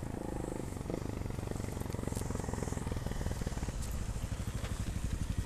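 Enduro motorcycle engine idling with a steady low putter, while a second motorcycle approaches and grows gradually louder.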